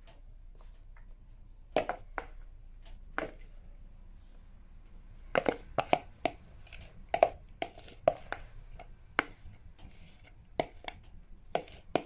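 Metal spoon clinking and scraping against a bowl and small baking dishes as batter is spooned out and scraped from the bowl. The sharp clicks come only now and then at first, then much more often from about five seconds in.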